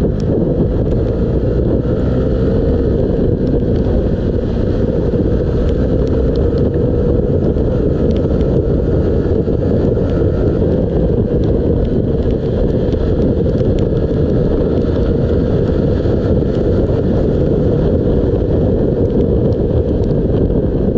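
Wind rushing over the microphone of a 125cc Honda motorcycle at road speed on a wet road, with the engine running steadily underneath.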